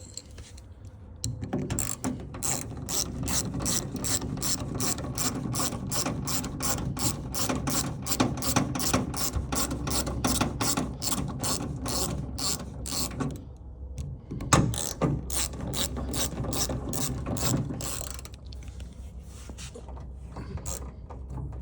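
Socket ratchet clicking steadily, about four clicks a second, as it turns a screw. It stops about 13 seconds in, then clicks again for a few more seconds.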